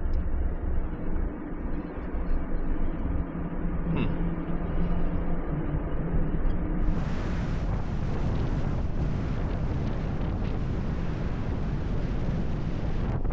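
Wind buffeting the microphone: a low rumble that changes suddenly, about seven seconds in, into a louder, fuller rushing hiss.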